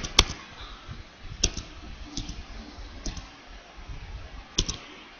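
Computer keyboard and mouse clicks while editing text: a handful of short, sharp clicks, mostly in quick pairs, spaced irregularly a second or so apart.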